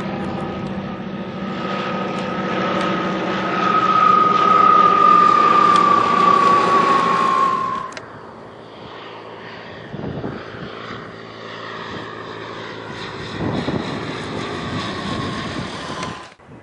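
Propeller airplane engine passing close by, a high tone falling slightly in pitch as it goes past, loudest about halfway through the first part. About halfway in the sound cuts abruptly to a quieter propeller engine.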